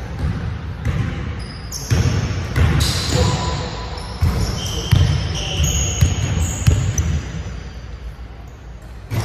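A basketball thumping several times on a hardwood gym floor, with a few short high sneaker squeaks and players' voices in the background, all echoing in a large gym.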